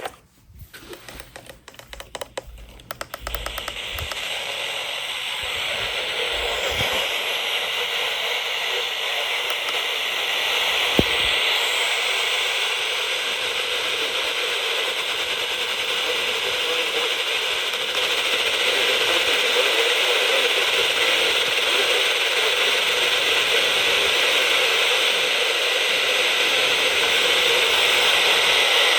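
Radio receiver static: a steady hiss with crackling clicks as the signal cuts out briefly at the start, then settling into an even hiss that slowly grows louder, with a single click about eleven seconds in.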